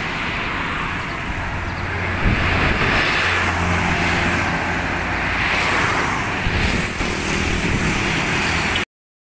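Roadside traffic with a Hino city bus's diesel engine droning as the bus passes close by, among motorcycles and cars. The sound cuts off abruptly near the end.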